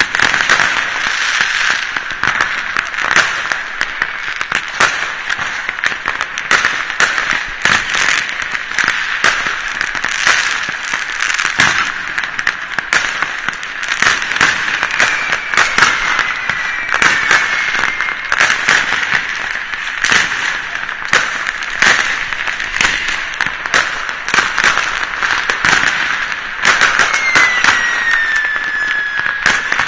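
New Year's fireworks and firecrackers going off in many places at once: a dense, unbroken crackle of bangs and pops, with a couple of whistles falling in pitch midway and near the end.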